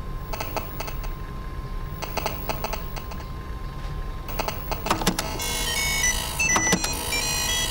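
Electronic clicking and beeping from a mobile phone: three short bursts of rapid clicks, then from about five seconds in a cluster of steady high electronic tones.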